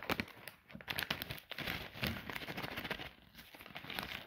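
Crinkling plastic bag of cable ties being handled, with irregular small clicks and knocks as a cable tie is pulled out and fitted.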